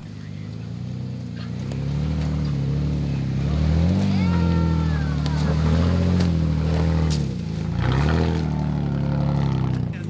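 Toyota FJ Cruiser's V6 engine working at low speed as the truck crawls through off-camber dirt ruts. It grows louder over the first couple of seconds, and its pitch rises and falls with the throttle. A few sharp clicks are heard over it.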